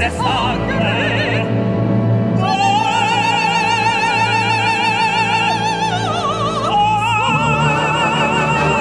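Soprano and tenor singing an operatic duet over a full symphony orchestra. About two and a half seconds in, a voice takes a long high note with wide vibrato, slides down just after the six-second mark, and settles on another held high note.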